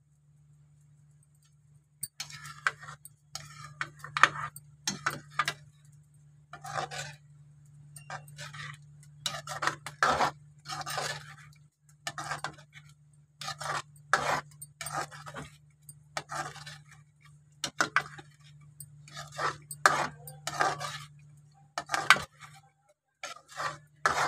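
Steel slotted spoon scraping and clinking against the kadhai while thick gravy is stirred, in irregular strokes about once or twice a second after the first couple of seconds, over a steady low hum.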